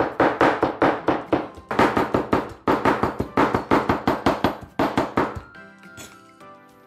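Chinese cleaver rapidly chopping peeled raw shrimp on a plastic cutting board, several quick strokes a second in short runs, mincing the shrimp. The chopping stops about five seconds in.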